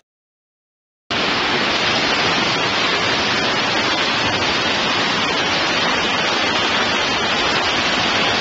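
Silence for about a second, then muddy floodwater rushing through a flooded underground metro station: a loud, steady rush that cuts off suddenly at the end.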